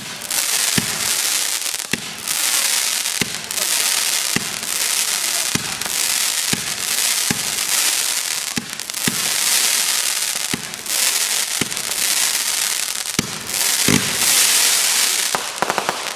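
Aerial fireworks firing in quick succession: a launch thump about once a second under dense crackling from glittering bursts overhead.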